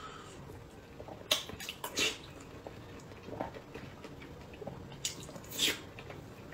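Close-miked eating sounds: soft, wet chewing of boiled egg and mouth noises, with a few short sharp clicks about a second in, around two seconds, and again near five seconds.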